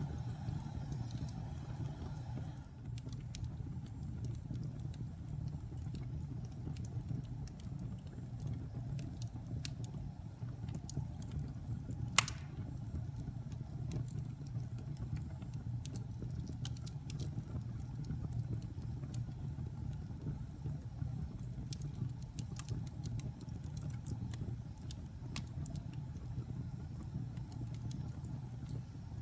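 Wood fire burning with a steady low rumble, scattered small crackles and one loud sharp pop about twelve seconds in.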